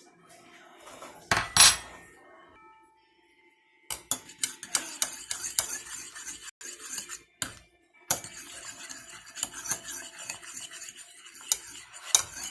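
A brief loud noise near the start, then a spoon clinking and scraping quickly and steadily against a bowl as slime ingredients are stirred together.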